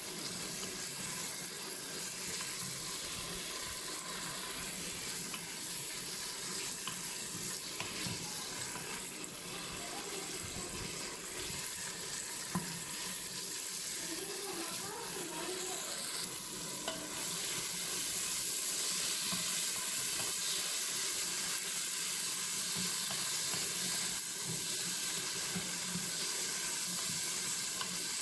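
Mutton pieces sizzling in an electric pressure cooker's inner pot on its stir-fry setting, stirred now and then to dry the dish. The sizzle grows louder about two-thirds of the way through.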